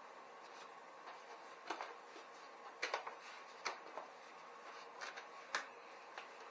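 Scattered light clicks and knocks from hands working on a bicycle wheel, fitting the tube and tire onto the rim, several seconds apart with a pair about three seconds in, over a faint steady hum.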